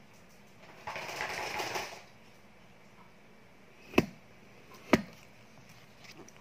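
Handling noise: a rustle about a second long, then two sharp clicks about a second apart.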